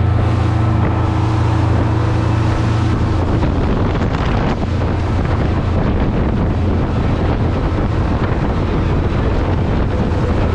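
Fishing charter boat's engine running steadily under way, a low hum that drops slightly in pitch about three seconds in, with wind buffeting the microphone.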